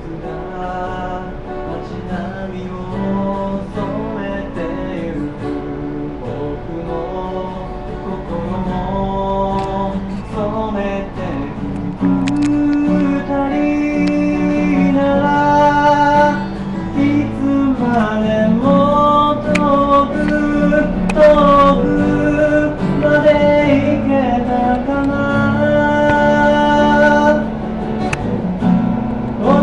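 Acoustic guitar played live, strummed and picked chords of a slow song's introduction, growing louder about twelve seconds in.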